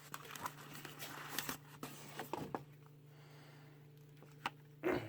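Soft rustling and handling of packaging as a camera is unpacked, then a sharp click and a short knock near the end, over a low steady hum.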